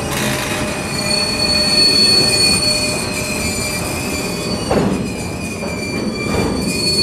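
Freight train's empty bulkhead flatcars rolling past, steel wheels squealing on the rail in steady high-pitched tones over the rumble of wheels on track. The squeal is strongest in the first half, and there is a brief knock about five seconds in.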